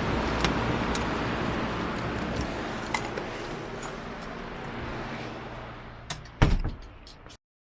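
Steady car road noise in traffic, slowly fading. A few light clicks come early, then near the end two loud knocks, the second the loudest, before the sound cuts off abruptly to silence.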